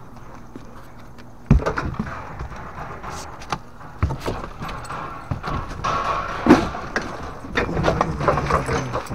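Irregular footsteps with scattered knocks and rustling, and a sharp thump about a second and a half in.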